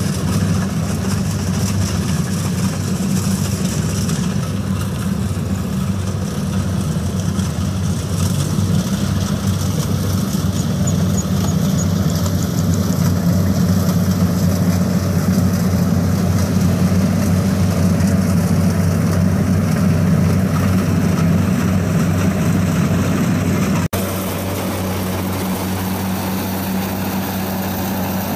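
Engine of a homemade tracked rice-hauling tractor fitted with a Mitsubishi engine, running at a steady speed as the machine drives across the field with a low, even hum. Near the end the engine note changes abruptly and becomes a little quieter.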